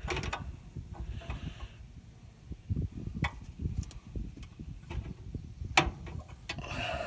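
A hand wrench turning a bolt on a brake master cylinder mounting, with irregular metallic clicks and scraping; the bolt is coming free without resistance.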